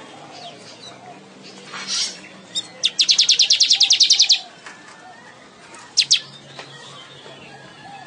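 Manyar (weaver bird) singing: a short buzzy note, then a fast rattling trill of about ten high notes a second lasting under a second and a half, followed by two sharp ticks.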